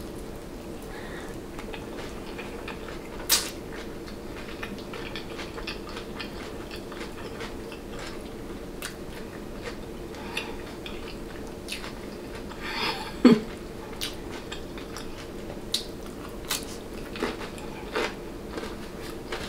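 Close-up eating sounds: bites into an egg roll and chewing, in scattered short crunches and clicks over a steady low hum. The loudest bites come about three seconds in and about thirteen seconds in.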